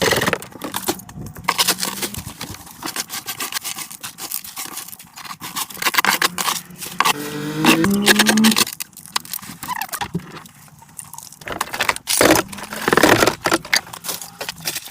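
Repeated scraping, knocking and clattering of debris being handled and cleared, with a brief squeal that steps upward in pitch about seven seconds in.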